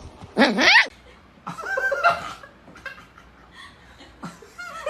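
A person laughing in short bursts, the loudest near the start and another about two seconds in.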